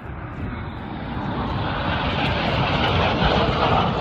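Jet noise from Red Arrows BAE Hawk T1 aircraft, a broad rushing roar growing steadily louder as the jets approach.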